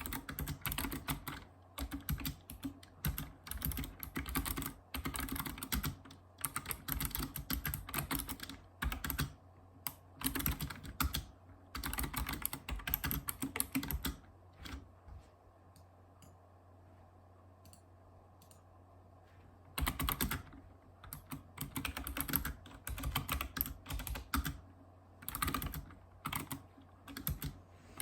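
Typing on a Razer Ornata Chroma keyboard, its mecha-membrane keys clacking in fast runs of keystrokes. The typing stops for about five seconds past the middle, then resumes.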